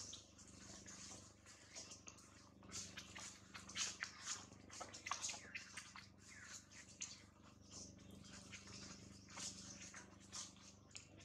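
Faint scuffling and dry-leaf rustling from long-tailed macaques moving about, in short clicky clusters about three to five seconds in and again near the end, with a few brief squeaks.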